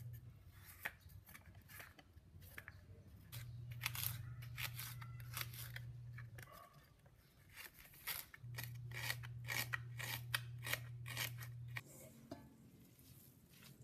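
Quick, irregular runs of sharp snipping and cutting clicks from food being cut during preparation. Under them a low steady hum comes in twice and stops.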